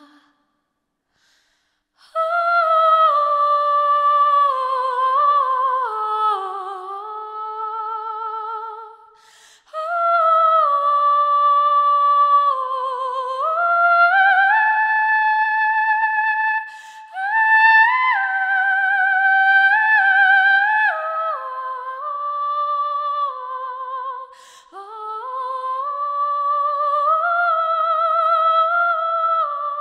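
A woman's high singing voice in a wordless vocalise, unaccompanied: long held notes with vibrato that glide up and down. It starts about two seconds in and comes in three phrases, with short breaths about nine and twenty-four seconds in.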